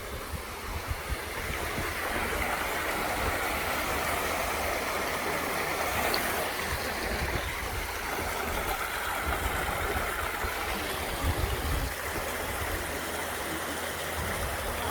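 Steady rush of falling, splashing water from a water mill, swelling a little about two seconds in, with low wind rumble on the microphone.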